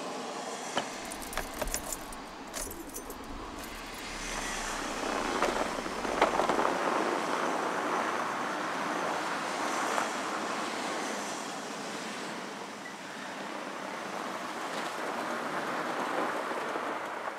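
Light clicks and rattles in the first few seconds as a car door and loose things are handled, over a low engine rumble. Then a small sedan drives off over snow and slush, its road and tyre noise swelling about six seconds in and running steadily on.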